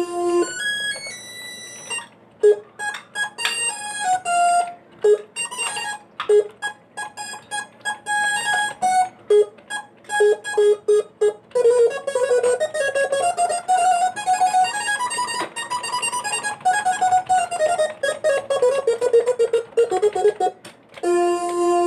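Instrumental music. A melody of short, separated notes gives way about halfway through to a fast, continuous run of notes that climbs and then falls in pitch. Held notes return near the end.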